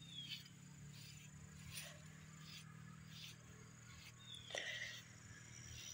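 Faint, repeated swishing strokes of a metal-toothed grooming rake through a dog's short coat, about one every half to three-quarters of a second, over a steady low hum and a thin, steady high insect whine.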